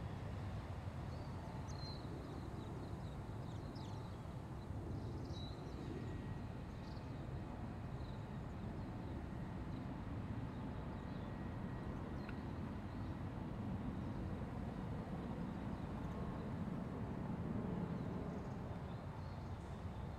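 Outdoor ambience: a steady low rumble, with a few faint bird chirps in the first several seconds.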